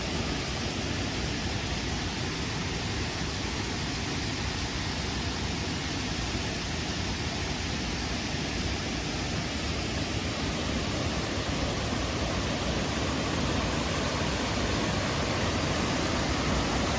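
Waterfall rushing: a steady, even roar of falling water that grows slightly louder near the end.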